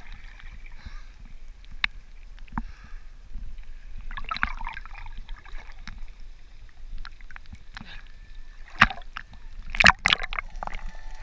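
Sea water lapping and sloshing against an action camera bobbing at the surface and dipping under, with muffled gurgling and scattered sharp splashes, the loudest a few near the end.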